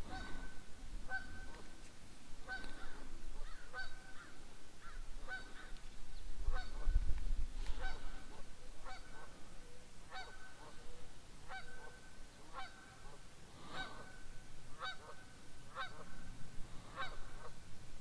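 A bird calling over and over, one short call about every second and a bit. A brief low rumble comes about seven seconds in.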